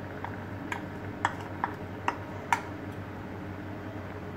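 A wooden spoon tapping and scraping against a ceramic dish and an aluminium cooking pot while coconut milk is scraped in and stirred: about six light, sharp knocks at irregular intervals over a low steady hum.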